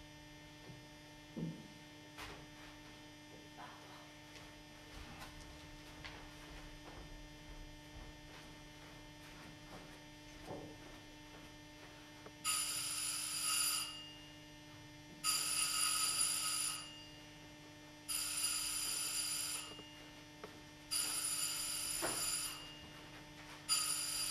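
Telephone ringing five times, each ring about a second and a half long with short gaps between, starting about halfway through. Before the rings there is a quiet stretch with a steady low hum and a few faint knocks.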